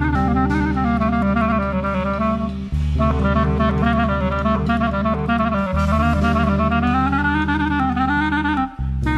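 Jazz music: a saxophone melody over drums and a bass line that changes note about every three seconds.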